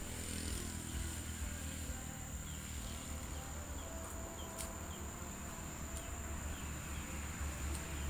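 A steady high-pitched insect drone over a low outdoor rumble. A few faint short chirps and light clicks come and go.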